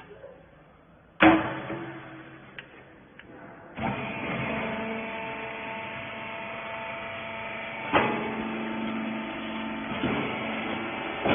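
A rags baler machine: a loud metal clank about a second in, then the baler's motor starts a few seconds later and runs with a steady hum of several tones, broken by two more clanks.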